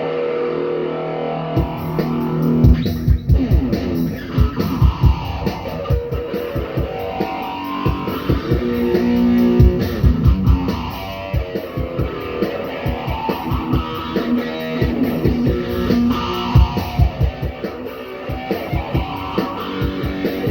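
Rock band playing an instrumental passage: electric guitar and bass over drums, with the drums coming in about a second and a half in.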